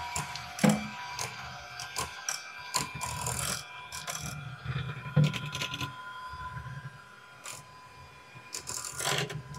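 Handheld electric mixer running, its beaters whipping boiled potatoes in a stainless steel saucepan: a steady motor whine with a pulsing hum, and the beaters clicking and knocking against the pot. It gets somewhat quieter in the second half.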